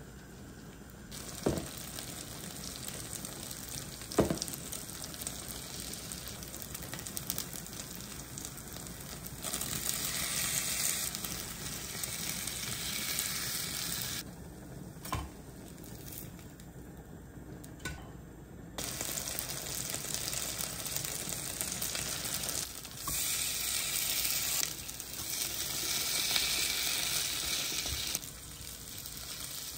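Korean cockle and vegetable pancakes (jeon) sizzling in oil in a frying pan, the sizzle swelling louder in stretches and easing off between them. Two sharp clinks of metal tongs against the pan come in the first few seconds.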